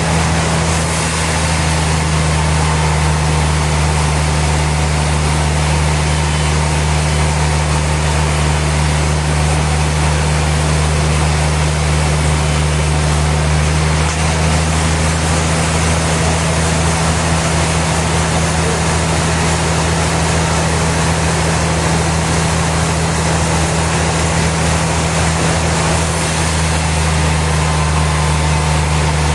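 Sawmill machinery running steadily: a constant deep motor hum under an even rushing noise, with no break or change.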